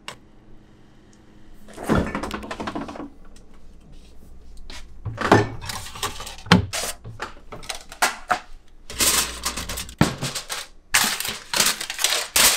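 Kitchen handling clatter: a string of knocks and clicks from containers and cookware being moved around a refrigerator and counter, with bursts of rustling late on.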